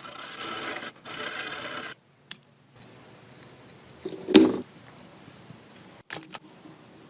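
Abrasive hand-tool strokes rubbing on a part during restoration work: two long strokes at first, then a single louder scrape about four seconds in and a few sharp clicks near the end.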